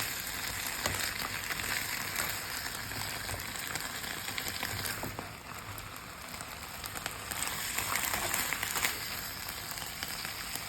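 Chicken and vegetables sizzling and crackling in a hot pan during a stir-fry, easing off briefly about halfway through and picking up again.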